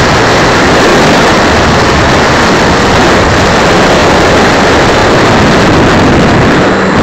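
Loud, steady rush of airflow and propeller noise on the microphone of a keychain camera riding on an electric RC model plane in flight, with no clear motor pitch standing out.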